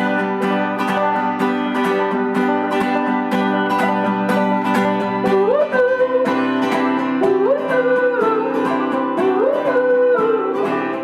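Acoustic folk band playing an instrumental passage: banjo and acoustic guitar picked steadily, about four strokes a second. About halfway through, a sliding melody line joins, rising then falling and repeating every couple of seconds.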